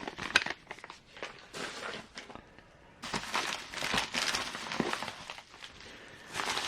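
Plastic packaging crinkling and rustling as model kit parts are unwrapped, with scattered light clicks and taps from parts being handled. The crinkling gets denser about halfway through.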